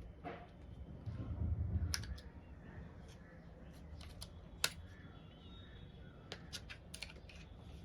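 Scattered clicks and taps from a Keychron K3 Pro low-profile mechanical keyboard being handled and its keys pressed now and then, with a low rumble of handling about a second in.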